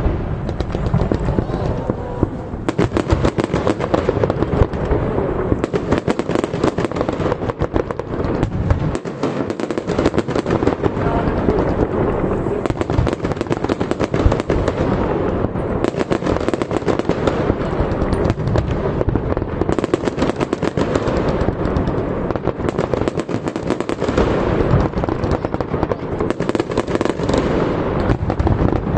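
Fireworks display in a rapid, unbroken barrage: many shell bursts and crackles follow one another too closely to count.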